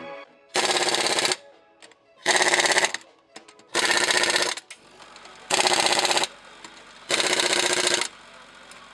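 Pneumatic impact wrench tightening wheel nuts, in five short bursts of rapid hammering rattle, each under a second, with brief pauses between.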